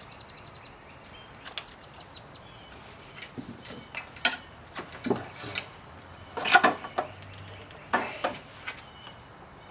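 Scattered clicks, knocks and clatter of parts and tools being handled while an electric scooter is taken apart by hand, with a quick run of faint ticks at the start and the loudest knocks about six and a half and eight seconds in.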